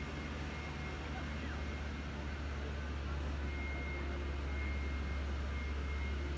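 Steady low rumble under the faint, even hubbub of a large crowd walking and murmuring in a wide open courtyard.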